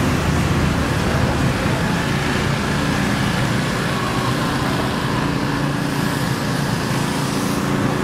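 A motor vehicle's engine running steadily at idle, with no revving.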